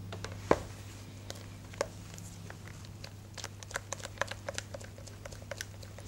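A single knock about half a second in, then a spatula stirring melted chocolate in a bowl, making a run of small light clicks and scrapes against the bowl, over a steady low hum.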